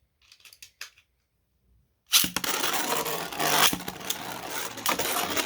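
A few faint clicks, then about two seconds in, two 3D-printed Beyblade spinning tops are launched into the stadium and spin, scraping and clashing against each other with a dense rattle and sharp hits.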